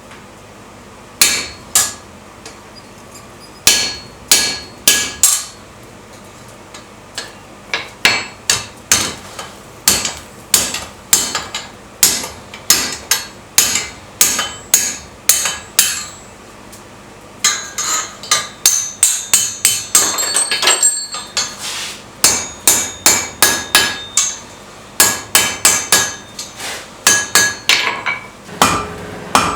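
Hammer blows on steel over an anvil, each one sharp and ringing, about two a second in uneven runs with short pauses, and a quicker flurry of lighter blows around the middle.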